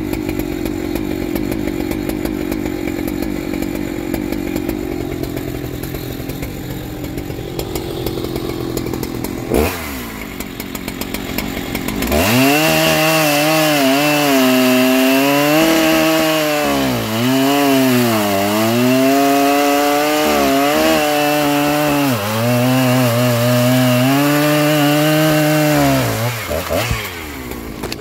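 Stock Husqvarna 3120XP big-bore two-stroke chainsaw bucking a large log. It runs quieter and steadier for the first ten seconds, with one sharp knock near ten seconds in. About twelve seconds in it goes to full throttle in the cut, its pitch dipping and recovering over and over as the chain loads up in the wood, and it drops off near the end.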